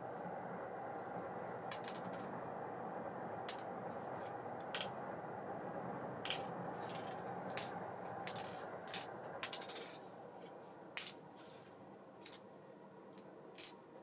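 Small metal parts of an Abu Ambassadeur 1500C baitcasting reel clicking and clinking as they are handled, a dozen or so sharp separate clicks. Under them runs a steady whir that weakens about ten seconds in.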